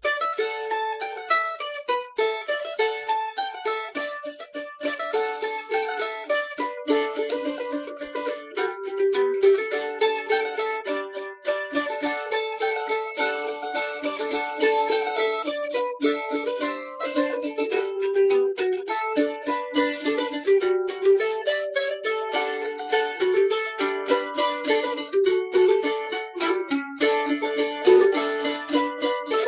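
Solo mandolin playing an old-time fiddle tune in a steady run of quick picked notes, with a sustained low note sounding under the melody.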